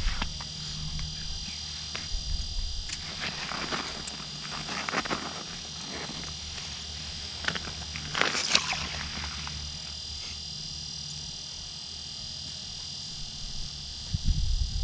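Intermittent rustling and scraping of fishing line, rod and a fish being handled by hand, with the loudest scrape about eight and a half seconds in. A steady faint high-pitched hiss lies underneath.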